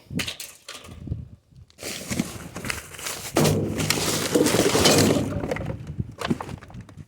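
Junk and debris being moved around and rummaged through: scattered knocks, then a long stretch of clattering and scraping from about two seconds in.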